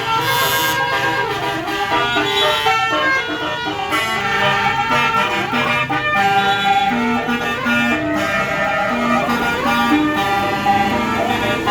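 Tour bus's basuri telolet horn playing a melody: a loud multi-note horn tune stepping from note to note, over the bus's running noise.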